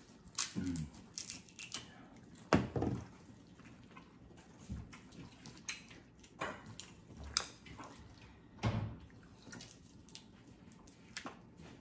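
Scattered wet clicks and cracks of crab and shrimp shells being peeled and broken by gloved hands at the table, with a few louder thumps, the loudest about two and a half seconds in.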